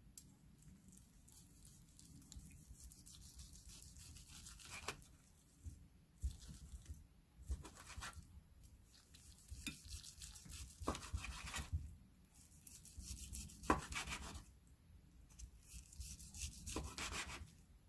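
Chef's knife slicing through boiled pork belly in faint back-and-forth sawing strokes, with a short knock of the blade on a plastic cutting board every second or two as each slice is cut through.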